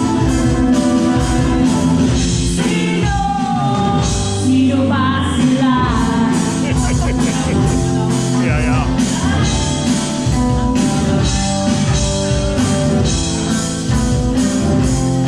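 Live band music: a singer over electric guitar and a steady beat, in a rock style.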